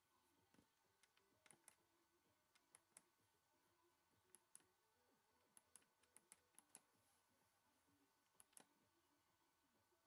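Faint clicks of the push-buttons on a Miele G 5720 SC dishwasher's control panel being pressed and released, mostly in quick pairs, about eight presses.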